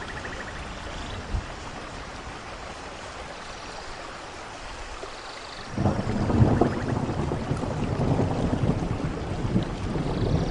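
Steady rainfall. About six seconds in, a loud low rumble of thunder breaks in and keeps rolling, building toward the end.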